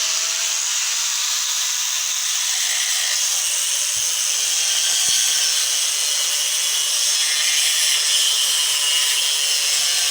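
Angle grinder with a cutoff wheel cutting into the steel housing of an electric motor: a loud, steady, high-pitched grinding hiss.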